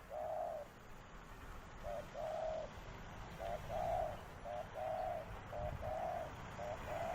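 Dove cooing in its calling phrase: a short note followed by a longer coo, repeated over and over. The phrases come faster in the second half.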